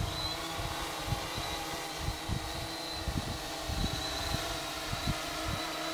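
Multirotor drone hovering under position hold: a steady propeller hum with a faint high whine, and irregular low rumbles underneath.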